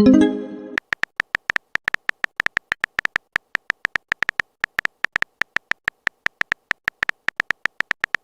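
A short electronic message chime, then a fast, even run of identical beeping clicks, about seven a second: a phone keyboard's typing sound effect.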